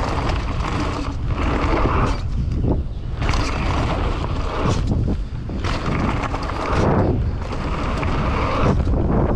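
Wind buffeting the microphone over the rumble of mountain-bike tyres rolling fast down a dirt trail, swelling and easing every second or so.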